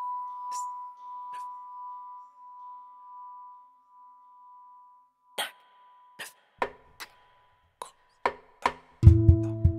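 Ambient music track: a bell-like ringing tone fades away over the first five seconds, then about seven sharp clicks at irregular spacing. Low, loud pitched notes come in near the end.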